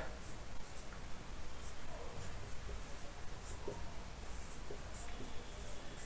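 Marker pen writing on a whiteboard: faint scratching in short, scattered strokes.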